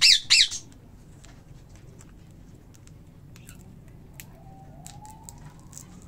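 Pet parrot squawking harshly twice in quick succession, then quiet apart from faint clicks. A faint rising whine comes in near the end.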